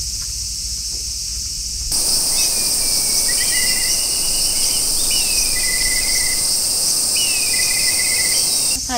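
Steady, high-pitched chorus of summer insects. About two seconds in it jumps louder, with short chirping trills repeating over it, and it stops abruptly near the end.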